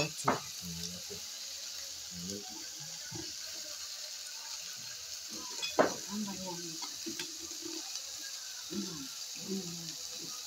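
Diced carrots, onions and spring onions sizzling steadily in a frying pan as they sauté, with a couple of sharp knocks, one just after the start and a louder one about six seconds in.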